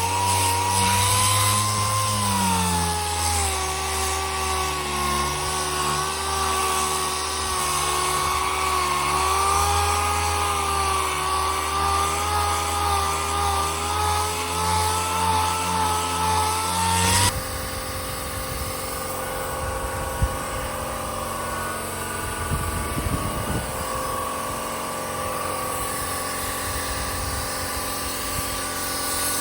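Handheld electric power tool running steadily, its motor pitch drifting slightly as it works. About 17 seconds in the sound changes abruptly to a quieter, different steady running.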